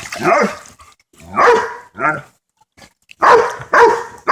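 A dog barking repeatedly. A few scattered barks are followed by a short pause, then from about three seconds in it barks steadily, about twice a second.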